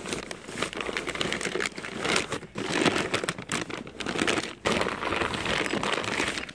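Clear plastic bag crinkling and rustling against the cardboard box as a bagged coilover is handled and pulled out, in rapid crackles with a few brief pauses.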